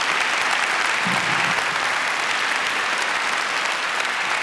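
Large audience applauding: dense, steady clapping.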